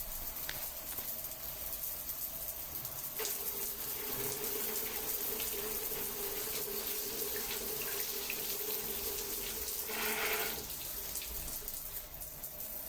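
Water running with a steady hiss and small splashes. From about three seconds in, a steady low tone rides on the water for about seven seconds, then stops.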